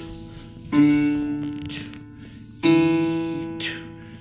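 Electronic keyboard playing two notes of a simple beginner tune, struck about two seconds apart, each left to ring and fade.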